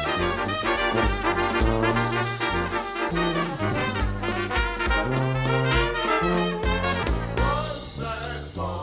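Instrumental brass-band music with trumpets and trombones over a steady bass line.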